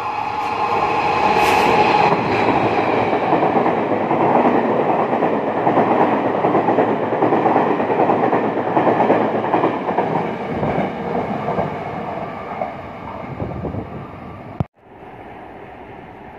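Locomotive-hauled nine-car Taiwan Railway Chu-Kuang Express passing through a station without stopping: the rushing noise of the train and its wheels on the rail rises as it arrives, stays loud for about ten seconds, then fades. It cuts off suddenly near the end, leaving a quiet steady background.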